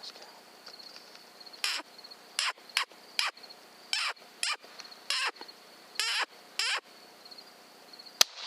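Crickets chirping in a steady high trill. About nine short, hissy sounds come and go through the middle, and a single sharp crack sounds near the end.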